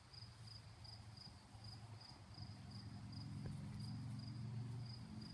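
An insect chirping in a steady, regular high pulse a few times a second, over a low hum that grows louder about halfway through.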